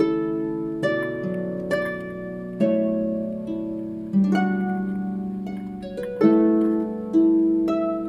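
Background instrumental music of plucked strings: notes and chords struck about once a second, each ringing on and fading away.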